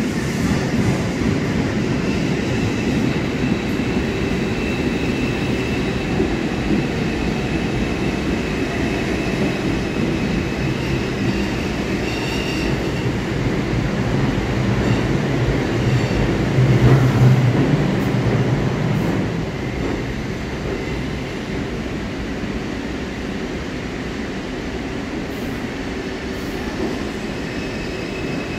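New York City subway 2 train pulling into an underground station: a steady rumble of wheels on rails with a high wheel squeal through the first half. It grows loudest about two-thirds through, then settles to a quieter steady hum as the train slows and stops.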